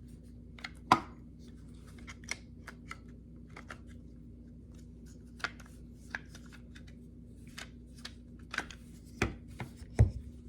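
Plastic impact driver housing being handled and fitted together by hand: scattered clicks and light taps, the sharpest about a second in and a few louder ones near the end, over a low steady hum.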